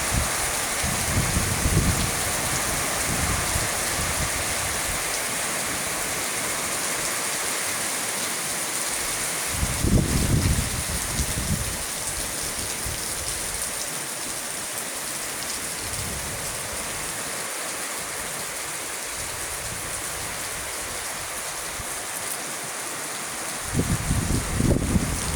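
Heavy rain falling steadily, with gusts of strong wind buffeting the microphone near the start, about ten seconds in, and again near the end.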